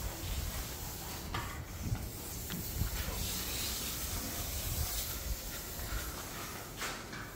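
Steady broad hiss over an uneven low rumble, with a few faint clicks, typical of wind and handling noise on a phone's microphone while walking.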